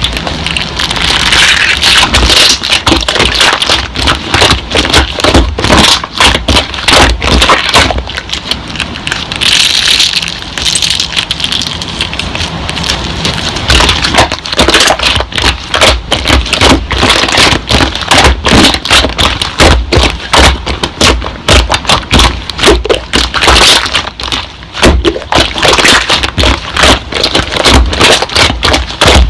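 Slime being squished, poked and stretched, making dense, irregular wet crackling and popping.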